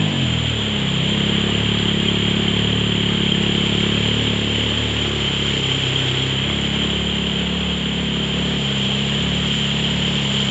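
Side-by-side UTV engine whose revs drop right at the start, then run low and fairly steady as it crawls over rocks. Under it is the steady rush of a loud waterfall.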